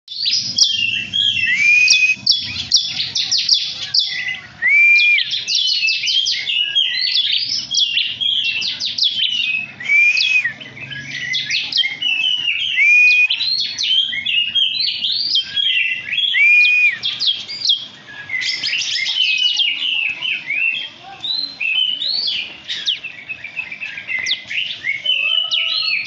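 Small songbirds chirping rapidly and without a break, with a short whistled note that swoops up and down every couple of seconds.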